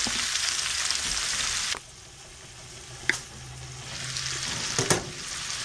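Sausage, bacon and cabbage sizzling in a stainless skillet. About two seconds in the sizzle drops abruptly and turns faint, then a glass pan lid clinks twice against the pan, once with a short ring and again about two seconds later. The sizzle grows louder again as the lid is lifted off.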